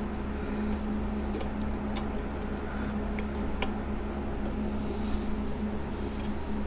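Steady low mechanical hum, with a few faint metallic clicks as a stuck motorcycle wheel spoke is worked against the hub.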